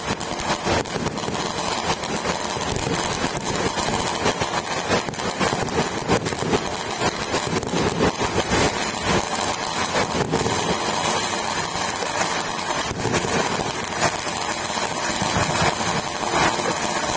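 Many fireworks and firecrackers going off at once across a city: a continuous, dense crackling din, with sharper single bangs standing out now and then.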